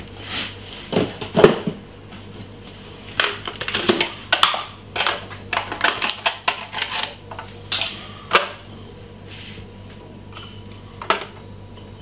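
Irregular clicks, taps and clatter of spice containers and a metal spoon being handled on a kitchen worktop, over a steady low hum.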